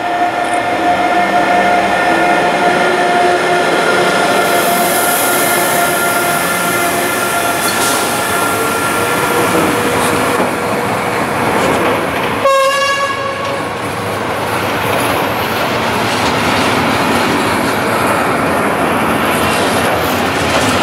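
Electric locomotive hauling a container freight train past at close range: a steady whine at first, then the continuous rumble and clatter of the container wagons going by. A short train horn blast sounds about twelve seconds in.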